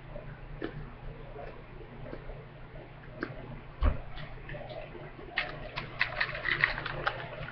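A chocolate-cream Pocky biscuit stick being bitten and chewed: scattered crisp crunches, thickening into a quick run of crunches about five and a half seconds in. A dull thump, the loudest sound, comes near four seconds, over a steady low hum.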